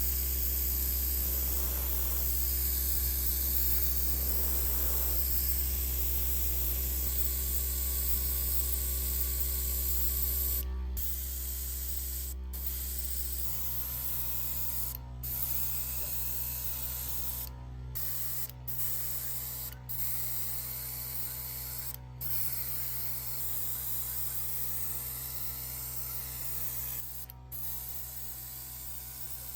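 A steady high hiss, broken by several brief gaps in the second half, over a low steady hum.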